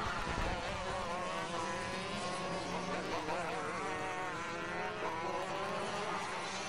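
Racing karts' 125cc two-stroke engines buzzing, more than one at once, their pitch rising and falling as they rev.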